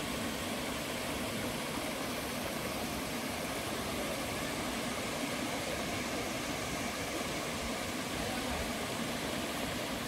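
Waterfall's water falling and rushing as a steady, even roar of noise.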